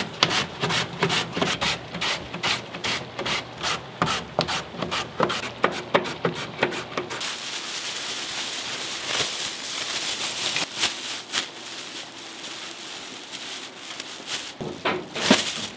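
Kitchen food-prep noise: quick, irregular knocks and rubbing for about the first seven seconds, then a steadier hiss with a few scattered knocks.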